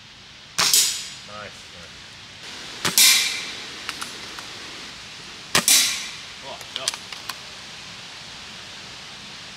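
Three shots from a BSA R10 precharged pneumatic air rifle firing .22 pellets, spaced about two and a half seconds apart. Each is a sharp crack with a short ringing tail. A few faint small clicks fall between the later shots.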